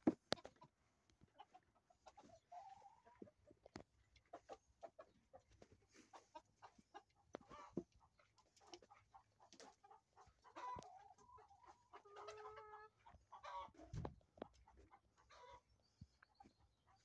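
Chickens clucking faintly now and then, with a short run of calls in the second half, among scattered light clicks and taps.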